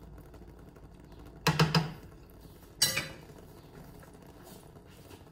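Slotted metal spatula clinking against a frying pan: a quick run of clinks about a second and a half in, then one sharp clink about a second later.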